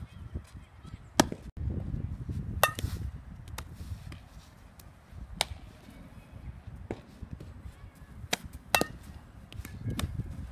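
Sharp cracks of a softball being hit with a metal bat and smacking into a leather fielding glove, about eight in all and spaced irregularly. Two of them carry a brief ringing ping. A low wind rumble on the microphone sits under them.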